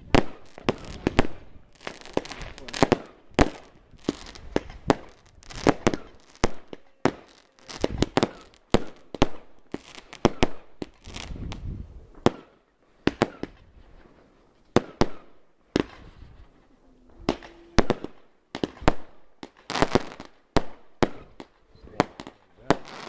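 Category 2 consumer fireworks going off: a fast, irregular string of sharp bangs as aerial shots burst, with hissing between the bangs.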